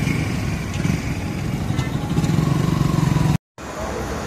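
Motorcycle engine running close by with road noise, growing louder for about a second before the sound cuts out abruptly for a moment and resumes as general traffic noise.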